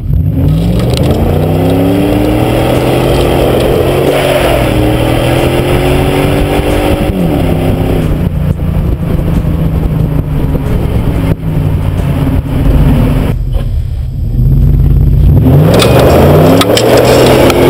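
2000 Dodge Dakota's 4.7-litre Magnum V8 exhaust under acceleration: the pitch climbs for about seven seconds and drops as the throttle eases or the gear changes. It then runs steadily for a while, dips, and climbs again near the end, loudest there.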